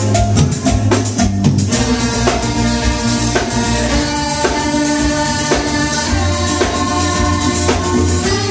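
Live band music: a rapid run of drum hits for about the first second and a half, then a steady beat under sustained guitar and bass notes.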